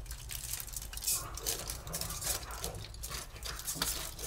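Aluminium foil crinkling in irregular crackles as the crimped edges of a foil packet are unfolded by hand.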